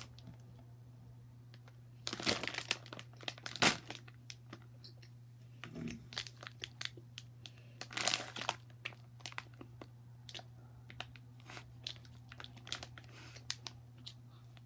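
Crinkling and crunching close up in irregular bursts, louder about two, three and a half and eight seconds in: a candy wrapper being handled while a peanut-and-cashew milk candy is chewed.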